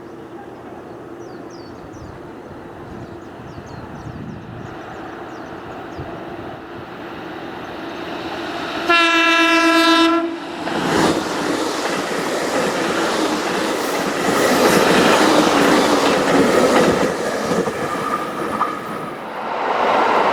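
An electric commuter train approaching along the platform, growing louder. About nine seconds in it gives one horn blast lasting about a second, then runs in loudly with wheels clattering over the rail joints.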